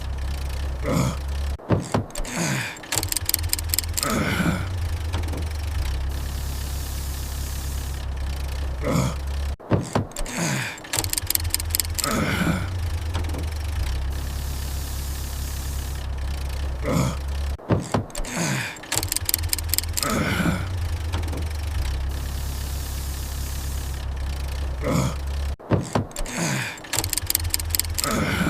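Car engine sound effect looped: a failed start attempt, with clicks, falling sputtering tones and a quick rattle, repeating about every eight seconds over a steady low rumble. The engine cranks without catching.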